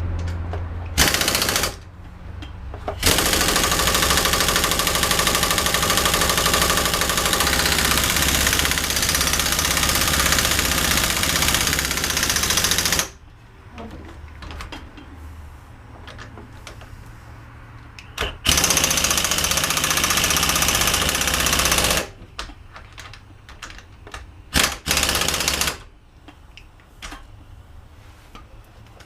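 Pneumatic impact wrench hammering at the 15 mm wheel-hub bolts in four bursts: a short one, a long run of about ten seconds, then two shorter runs, with quiet pauses between.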